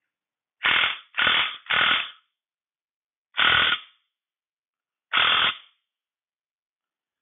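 Impact wrench hammering in five short bursts on a brake drum puller's all-thread nut: three quick bursts, then two more spaced out. It is trying to pull the rusted-on brake drum off a 1953 Allis Chalmers B final drive cold, and the drum does not come loose without heat.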